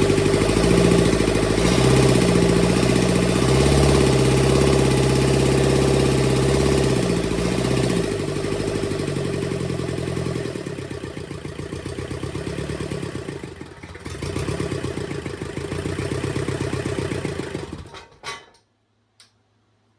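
Freshly rebuilt Kubota V2203 four-cylinder diesel engine running, its speed shifting during the first half before settling quieter, then shutting off about 18 seconds in, followed by a couple of light clicks. A first run after the rebuild, with the valves not yet adjusted; the owner hears nothing wrong with it.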